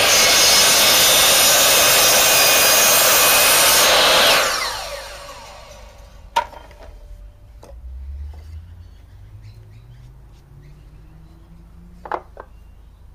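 Sliding compound mitre saw running at full speed, then switched off about four seconds in and spinning down with a falling whine. A couple of sharp clicks follow as the saw and timber are handled.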